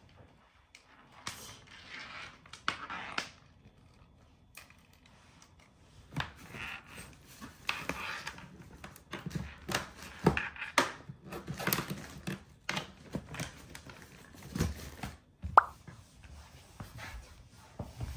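Irregular rustling and soft knocks of luggage and belongings being handled while packing a bag, busier in the second half. One sharp click comes about fifteen seconds in.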